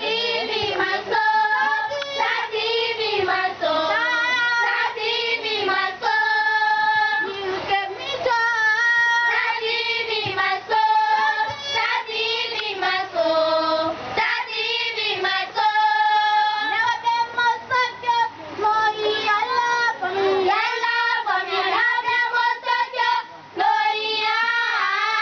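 Group of children singing together, a continuous sung melody with held notes.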